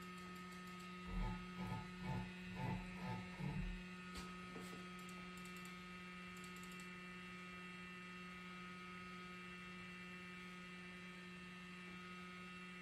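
Steady electrical mains hum. A few short low thumps come between about one and four seconds in, followed by faint light taps.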